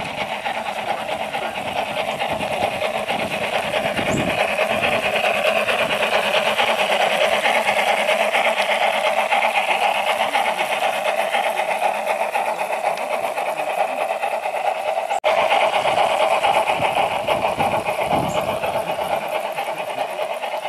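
Garden-scale model locomotive running along the track with a rapid, steady mechanical clatter, broken off briefly about fifteen seconds in.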